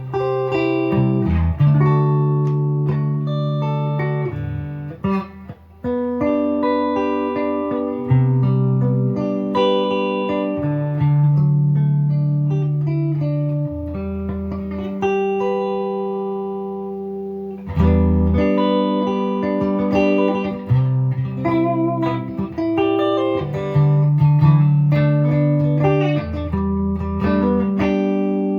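Gibson Les Paul 50s Standard electric guitar with P-90 pickups played through an amp on a clean tone: picked chords and single notes. About halfway through a chord is left to ring out and fade before the playing starts again.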